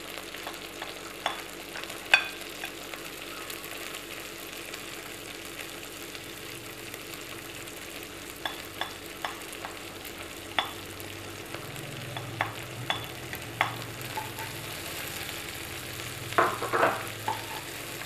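Shallots, garlic and chilies sizzling steadily in hot oil in a wok, with sharp knocks of a spatula now and then. The loudest knock comes about two seconds in, and a cluster comes near the end.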